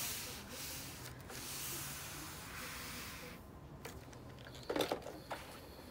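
Panasonic iron sliding back and forth over the paper backing of HeatnBond Lite fusible web on fabric, a soft swishing that rises and falls with each stroke and fades about three seconds in. Near the end there are a few light knocks.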